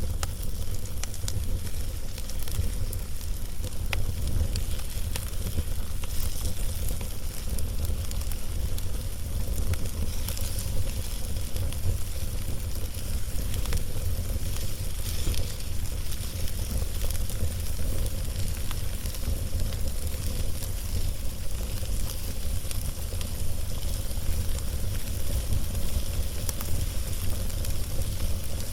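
Log fire burning, the wood crackling with scattered sharp pops over a steady low rumble.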